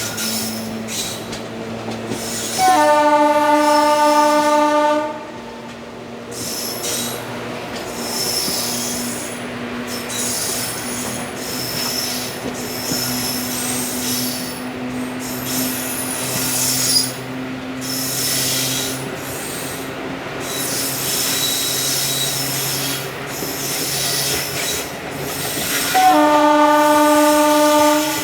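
WAG5 electric locomotive horn sounding two long blasts, one about three seconds in and one near the end. Under the horn, the ICF coaches rumble along the track with the wheels squealing.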